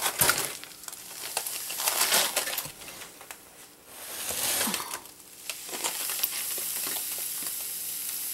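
Granulated sugar being scooped and poured with a metal measuring cup into a plastic container: scraping and rustling in irregular bursts, then a steadier grainy hiss in the second half.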